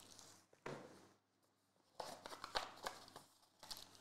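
Faint rustling and light tapping of a cardboard trading-card box being handled and opened by hand, with a near-silent pause of about a second partway through.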